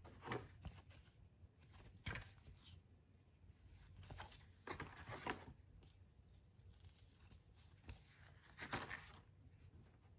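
Faint sliding and rustling of large glossy cardstock picture cards being leafed through by gloved hands, card rubbing on card, in a handful of soft strokes a second or more apart.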